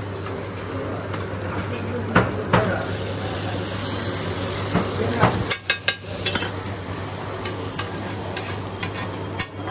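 Metal spatula scraping and clacking on a large flat iron griddle over the steady sizzle of chicken frying on it. The sharp clacks come now and then, with a quick cluster about halfway through.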